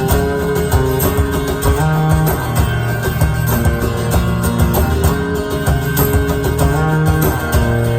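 Instrumental break in a band's song: guitar over bass with a steady drum beat.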